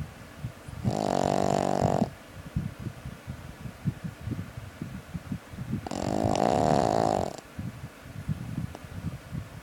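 Puppy snoring: two long buzzing snores, about a second in and about six seconds in, with low irregular crackling between them.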